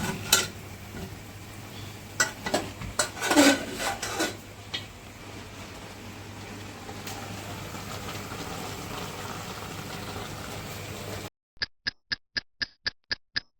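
A utensil knocking and scraping against a pot as stiff ugali is stirred. The ugali is sticky and hard to turn. Near the end the sound cuts off abruptly into about nine quick, evenly spaced high ticks.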